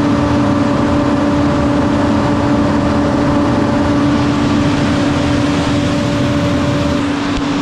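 Opico grain dryer's large electric-driven fan running at full speed: a loud, steady rush of air with a constant hum.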